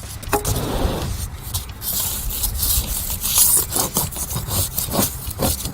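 A flat hand tool scraping repeatedly along a saw cut in a foam-backed skirting panel, clearing the panel core out of the 45-degree cut down to the vinyl face; irregular rasping strokes with small clicks.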